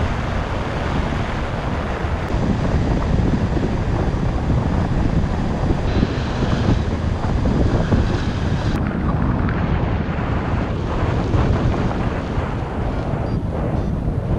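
Airflow buffeting the microphone of a camera worn by a paraglider pilot in flight: steady, deep wind noise.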